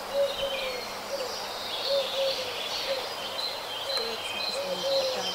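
Small birds chirping and singing, with a steady run of short, low, arched piping notes, about two a second, beneath them.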